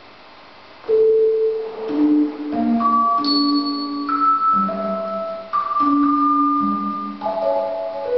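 Music: a simple melody of clear, held, bell-like notes, often two or three sounding together, starting about a second in.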